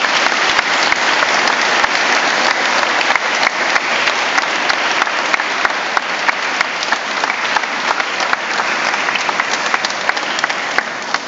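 A church congregation applauding: a steady, dense round of many hands clapping.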